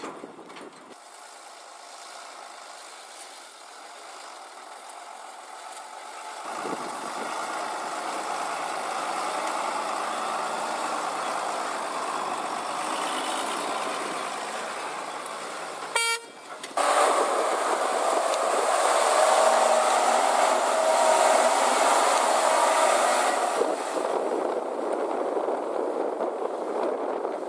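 Diesel tipper lorries running on sandy ground, the engine noise louder in the second half. A horn gives a brief toot about halfway through.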